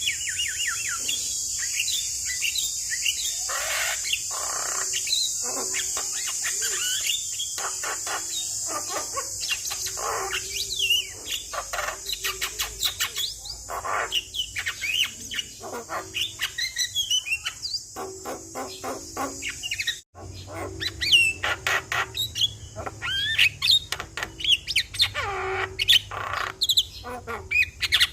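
Javan myna (jalak kebo) singing in a busy, varied chatter of whistles, quick rising and falling notes and rapid rattling trills. A steady high hiss sits under the first two-thirds and stops at a brief break, after which the calls come louder and sharper.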